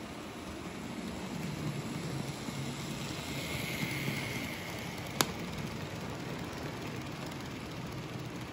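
N-scale model freight train running past on its track, with the small locomotive motor whining as it passes about three to four seconds in, over the steady noise of the wheels on the rails. A single sharp click comes about five seconds in.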